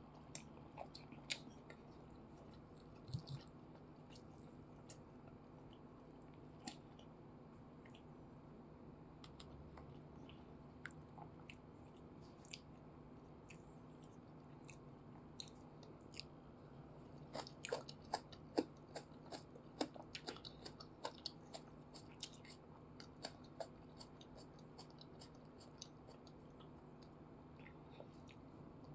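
Faint, close-up wet clicks and smacks of sticky food: chicken satay and peanut sauce being dipped and eaten. The clicks are scattered throughout and come thickest in a cluster past the middle, over a low steady hum.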